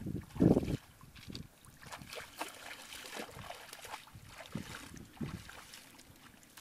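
Feet wading through shallow paddy water, sloshing and splashing: a loud slosh in the first second, then quieter irregular splashes.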